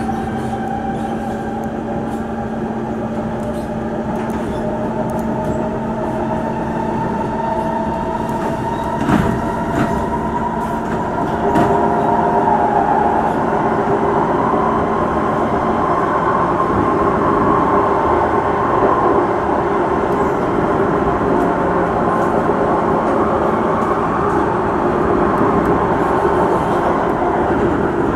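Singapore MRT train heard from inside the car: a steady rumble of wheels on rails under an electric whine that rises in pitch through the first dozen seconds as the train gathers speed, then holds steady. A couple of brief clicks come about halfway through.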